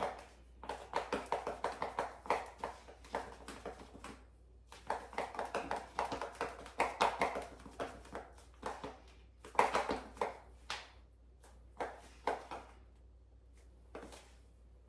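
Stiletto heels clicking sharply on a tile floor as someone walks back and forth, in runs of steps with short pauses between.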